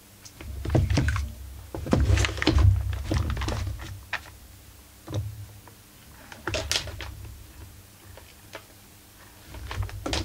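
Partly dismantled Husqvarna 44 chainsaw body being handled on a workbench: about five clusters of knocks, clicks and dull thuds as the housing is turned over and set back down.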